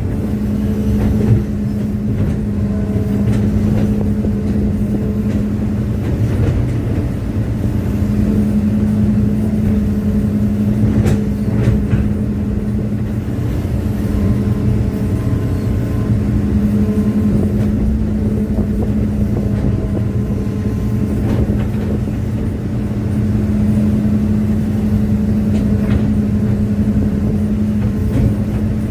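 Hitachi excavator's diesel engine running steadily with a low drone, with a couple of sharp metallic clanks about eleven and twelve seconds in.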